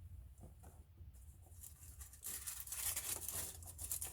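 A rag being handled and scrunched: rough rustling and crinkling that starts about two seconds in and grows louder, after a few faint taps.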